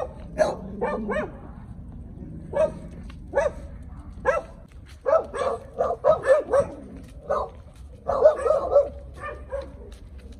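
Loose street dogs barking, a string of short sharp barks coming in irregular volleys, with the densest run about eight seconds in.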